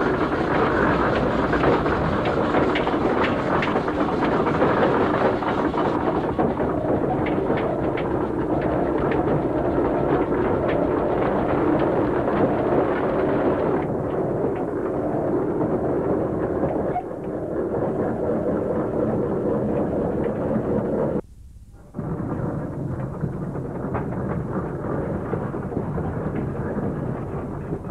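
Steam road rollers on the move: a loud, dense rumble of engine and running noise. It cuts out for about half a second around twenty-one seconds in.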